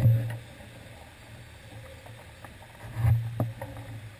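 Low, muffled engine hum of slow street traffic, likely the cargo van inching past close by. It is loudest at the very start and drops away within half a second, swells briefly about three seconds in, and has a few light ticks over it.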